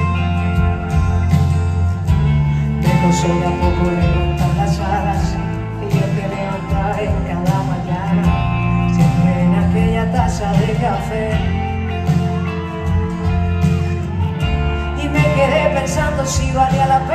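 A live band playing a pop ballad in a concert hall, with a strong bass line and a singing voice over it at times.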